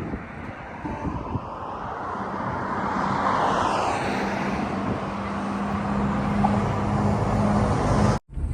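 Engine noise of something passing close by: a broad rushing sound that swells over the first few seconds with a steady hum under it, then cuts off abruptly near the end.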